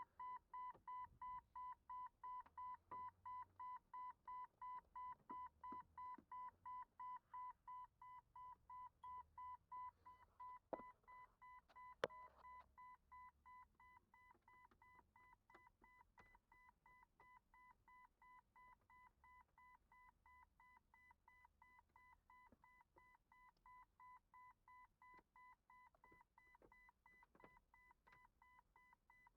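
A 1999 Jeep Cherokee XJ's dashboard warning chime beeps steadily, about two beeps a second, set off by the pulled-out headlight switch. About halfway through it drops to a quieter level, and a couple of sharp clicks come just before the drop.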